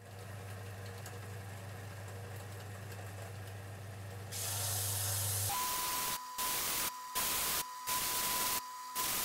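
Bench belt sander running, with a sapele wood pot held against the sanding belt. The hiss of sanding grows louder about four seconds in, then comes in short loud bursts about once a second as the piece is pressed to the belt again and again.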